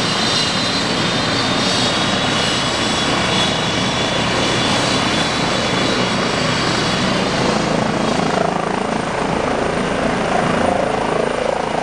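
Trauma helicopter's turbine engines and rotor running, loud and steady, with a high turbine whine that fades about eight seconds in.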